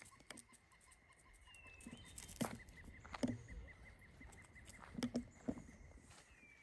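A high, rapid trill held steady, a small animal's call, with a couple of short gliding whistles and several dull knocks about halfway through.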